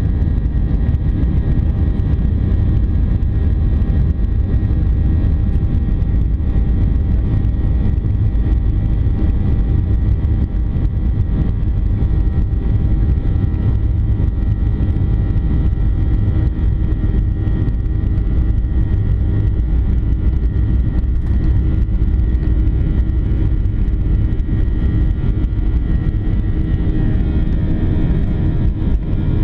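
Cabin noise of a Boeing 737-800 taxiing, heard inside the cabin: its CFM56-7B turbofan engines running at low taxi power, a steady low rumble with thin steady whine tones over it.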